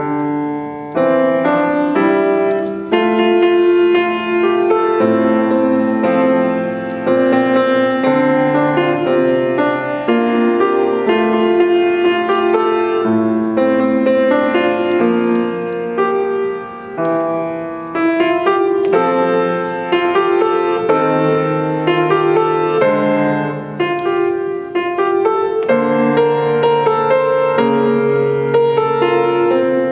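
Solo grand piano being played: a continuous run of notes and chords across the low and middle range, with brief dips in loudness between phrases.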